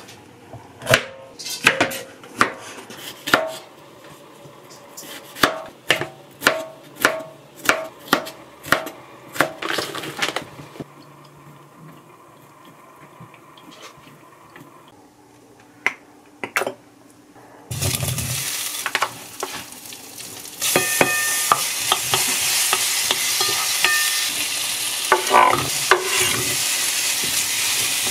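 Chef's knife chopping bell peppers on a wooden cutting board, sharp knocks about two a second. After a quieter pause, cocktail sausages and peppers go into a hot frying pan and start sizzling, louder from about three seconds later, while a wooden spoon stirs them.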